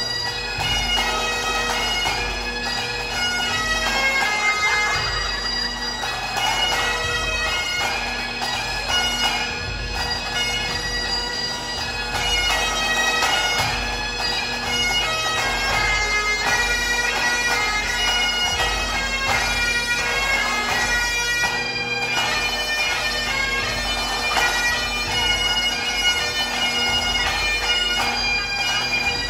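A small band of Great Highland bagpipes playing a tune together, the chanters' melody moving over steady, unbroken drones.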